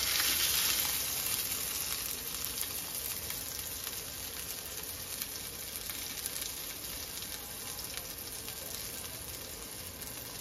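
Herb-coated fish fillets shallow-frying in hot oil in a nonstick pan, a steady sizzle with small crackles, loudest in the first second or so and then settling to an even level.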